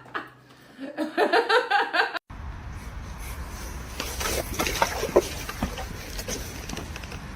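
A person's voice, possibly laughing, for about a second, then an abrupt change to a steady low rumble with scattered small clicks and knocks.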